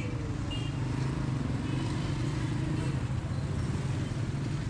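Busy street ambience, mostly a steady low hum of motor vehicle engines running close by, under a continuous wash of background noise.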